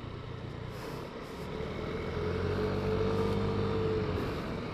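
Yamaha Lexi S scooter's 125 cc liquid-cooled VVA engine running under way with wind noise; its note swells, rising slightly and easing off, between about two and four seconds in.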